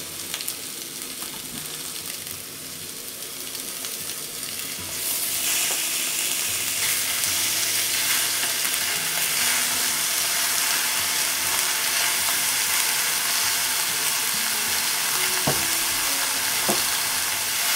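Onions and ginger sizzling in hot oil in a cast-iron pot. The sizzle grows louder about five seconds in as chunks of raw beef shank are tipped in to brown, and there are two small knocks near the end.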